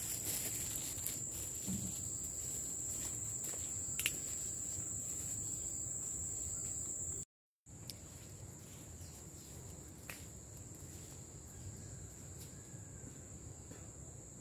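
Insects droning in one steady high-pitched note, with a short break about seven seconds in, after which the drone is quieter. A single sharp click about four seconds in.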